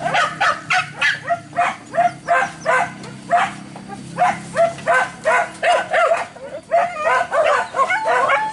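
Hunting dogs barking in a quick, unbroken string of short barks, about three a second.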